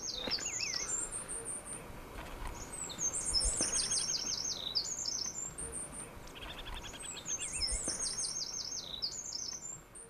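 Small songbirds singing: bouts of fast, high-pitched repeated notes that come and go about three times, with short lower trills beneath.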